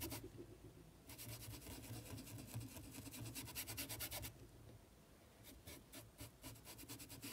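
Paintbrush bristles scrubbing across fabric glued to a board: a faint, rapid scratching of short strokes, pausing briefly near the start and for about a second in the middle.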